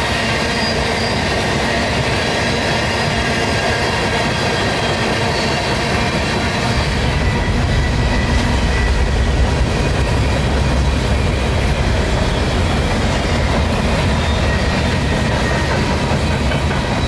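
Freight cars of a long CSX train rolling past at close range: a steady wheel-on-rail rumble and clatter, with a few thin high tones running over it. The low rumble grows heavier about seven seconds in.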